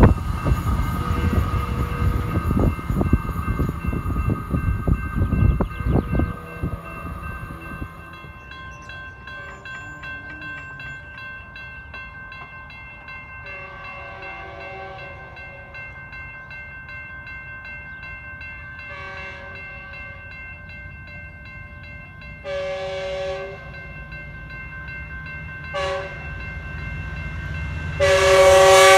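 Metrolink passenger train passing at speed, its wheels clattering over the rails, fading out about seven seconds in. Then a grade-crossing warning bell ringing steadily while the train's horn sounds several blasts from a distance. A much louder horn blast comes near the end as the train reaches the crossing.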